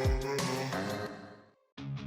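Background pop music: one track fades out about a second and a half in, and after a brief gap a new track starts with quick, evenly repeated guitar strums.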